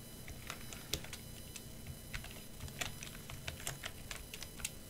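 Typing on a computer keyboard: a run of irregular key clicks as a command and password are entered at a terminal.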